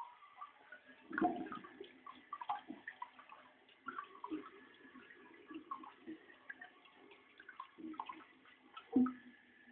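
Toilet plumbing with water running and gurgling, giving off irregular knocks and short squeaky tones, the loudest knocks about a second in and near the end.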